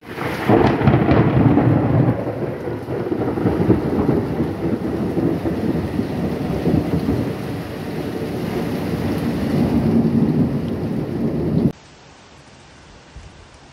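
Thunder rumbling over a heavy downpour, loudest in the first couple of seconds and swelling again near the end; the sound cuts off abruptly shortly before the end, leaving only faint noise.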